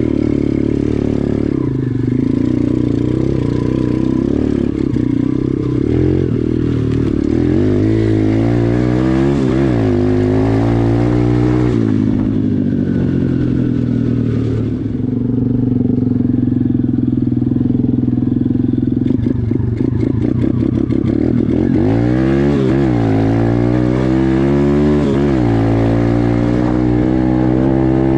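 Engine of a cheap 125cc KXD motocross bike under way. Its pitch climbs and drops back again and again as the throttle is worked, and it runs steadier in the middle stretch.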